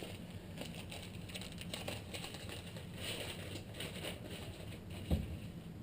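Light clicks and rustling from metal engine parts being handled and set down during disassembly, with one dull thump about five seconds in.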